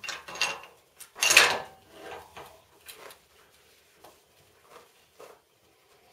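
The bolt of a Barrett 99-1 .50 BMG single-shot rifle being worked by hand: metal sliding and a loud clack about a second and a half in, followed by a few softer clicks and knocks.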